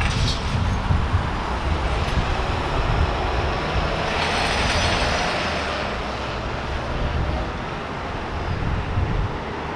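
Street traffic noise: a steady low rumble of vehicle engines, with a swell of hissing road noise about four to five seconds in, like a vehicle passing.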